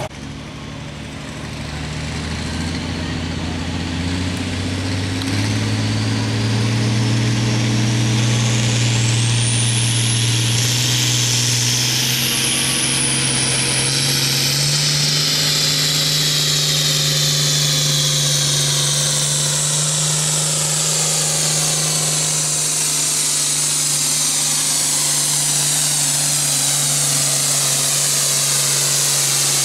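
International Harvester Turbo tractor's diesel engine at full throttle pulling a weight-transfer sled. It revs up over the first few seconds and then holds a steady pitch under load, with a high whine rising over it.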